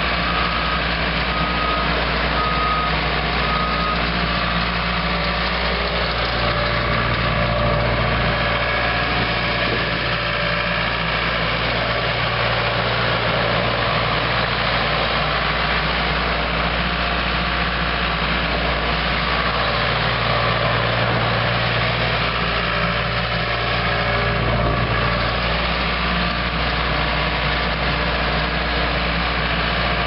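1995 Case 1845C skid steer's four-cylinder diesel engine running steadily as the machine drives and turns, its low drone swelling twice for a few seconds, about a quarter and two-thirds of the way through.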